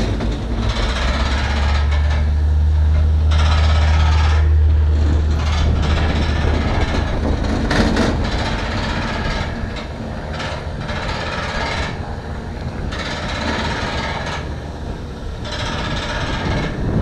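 Motor-driven hose reel on an aviation fuel pump winding the fuel hose back in, with a low motor hum for about the first six seconds. Then comes irregular rattling and a few knocks from the hose and reel.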